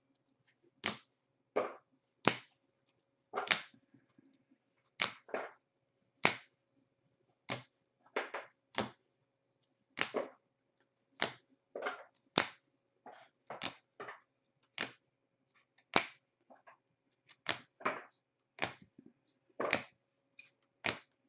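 Rigid plastic top-loader card holders clacking against one another as a stack of trading cards is flipped through one card at a time: sharp single clicks at an uneven pace, roughly one or two a second.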